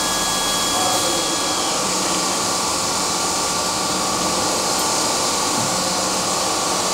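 Steady whirring hiss of industrial process machinery with a low hum beneath it. Two faint high whistling tones stop a little under two seconds in.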